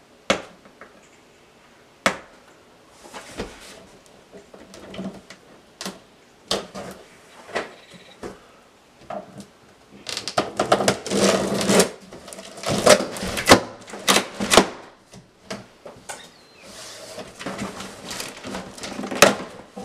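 A taped cardboard shipping box being opened by hand: scattered taps and knocks, then from about ten seconds in a busy few seconds of tape ripping and cardboard scraping and tearing.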